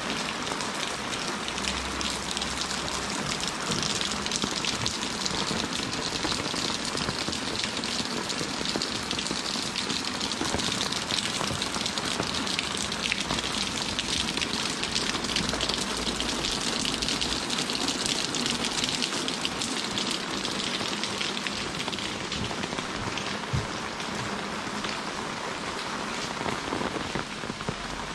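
Heavy rain falling steadily, a dense, even patter of drops on wet paving and foliage.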